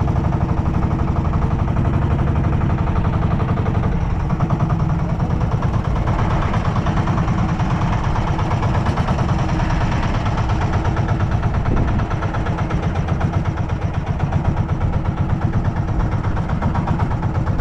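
Boat engine running steadily, a loud continuous low drone with an even rapid firing beat.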